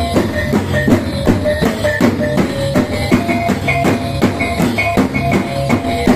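Dayak healing-ritual percussion ensemble: several double-headed barrel drums beaten with sticks in a fast, even beat, with short ringing pitched notes from gongs over the top.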